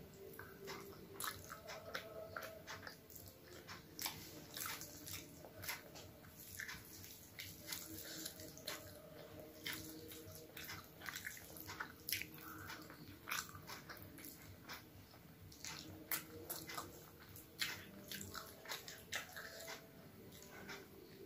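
Close-up eating sounds of rice and curry eaten by hand: soft chewing and wet mouth smacks, heard as irregular short clicks.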